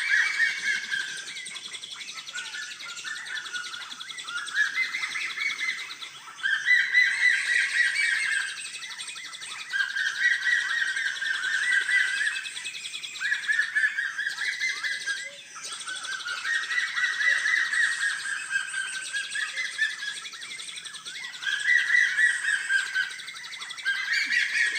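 Bird calling in a series of fast chattering phrases, each one to three seconds long, repeated with short gaps.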